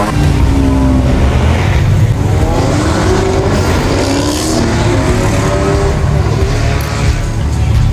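Several performance car engines running and revving as the cars pull away at low speed, their exhaust notes rising and falling in pitch and overlapping.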